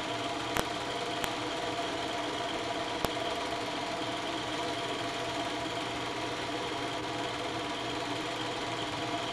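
8mm film projector running: a steady mechanical whir with three brief clicks in the first few seconds.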